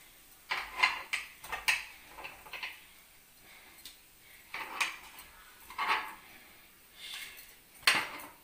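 A small metal spoon clinking and scraping against a paniyaram pan and a steel bowl as fried bondas are lifted out and dropped in, in short irregular clusters of clinks.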